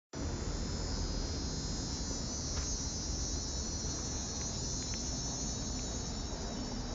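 Cicadas singing: a steady, high-pitched buzzing drone over a low background rumble.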